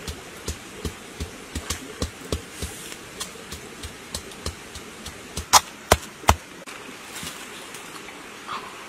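Wooden pestle pounding chilies, a steady rhythm of about three knocks a second. A little past halfway it ends with three louder, sharper knocks in quick succession.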